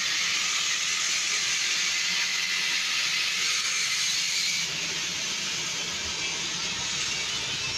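Flour-coated chicken pieces deep-frying in hot oil, a steady sizzle that eases slightly about two thirds of the way through.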